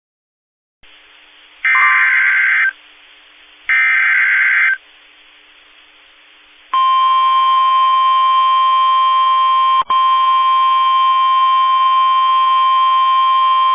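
Emergency Alert System tones: two short bursts of warbling SAME header data tones about a second apart. Then a loud, steady single-pitch attention tone, the NOAA Weather Radio 1050 Hz warning alarm, with a brief dropout and click partway through. It signals the start of a new severe thunderstorm warning broadcast.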